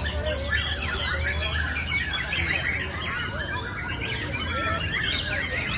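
White-rumped shama (murai batu) singing, a fast, varied run of whistled and chirping phrases with quick rising and falling notes.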